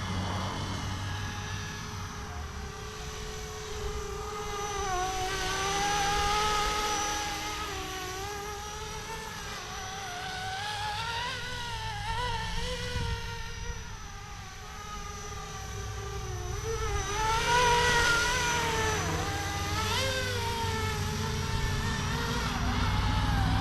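Flishrc Little Bird 450 model helicopter in flight, its motor and rotor whine wavering up and down in pitch. It swells louder about six seconds in and again around eighteen seconds, as it passes closer.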